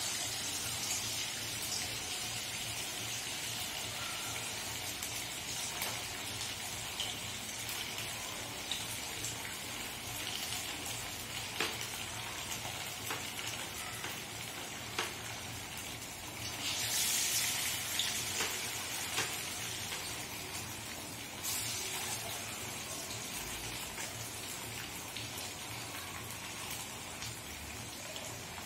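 Gram-flour-battered fish pieces deep-frying in hot oil in a kadai, a steady sizzle with a few light clicks. The sizzling surges louder about two-thirds of the way through, then settles again.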